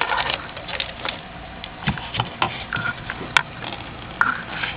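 Scattered light clicks and knocks from hands handling a vacuum hose and nearby parts in the engine bay of a GM 3800 V6, with one sharper click about three seconds in.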